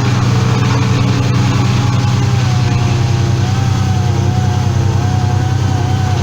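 An engine running steadily at a constant speed: a low hum with a slightly wavering higher whine over it.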